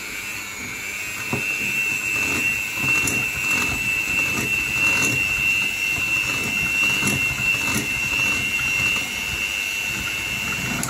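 Electric hand mixer running steadily at its lowest speed with a high, even whine, beating softened butter and icing sugar in a glass bowl. There are occasional light clicks, and the motor cuts off at the very end.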